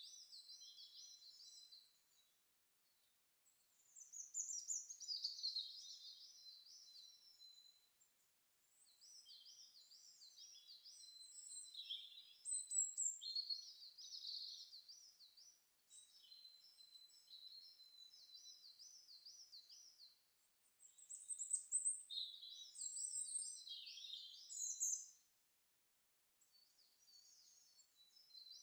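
Songbirds chirping and singing high, quick warbling trills, from a garden-birdsong sound-effects track. The birdsong comes in several passages broken by brief dead silences.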